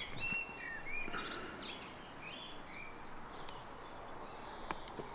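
Small birds chirping: a run of short whistled chirps in the first two seconds, then a few fainter calls over faint background noise. Two sharp clicks near the end.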